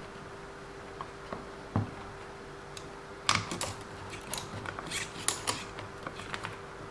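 Light clicks and clatter of small parts and tools being handled on a workbench: a few isolated taps, then a busier run of sharp clicks from about three seconds in, over a faint steady hum.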